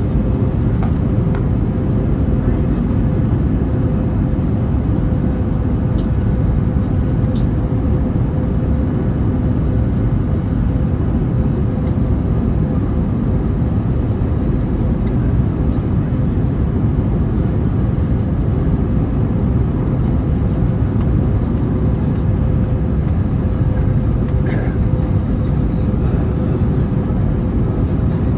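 Wind buffeting the microphone: a steady low rumble that does not rise or fall, with a faint steady hum above it.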